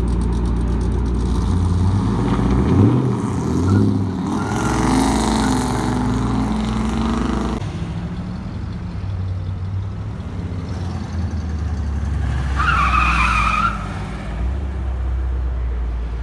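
A car burnout pulling out of a lot: the engine revs up in rising steps and runs hard for a few seconds over the hiss of spinning tires, then drops off sharply about halfway through. Later comes one short tire squeal, with engines idling and running underneath.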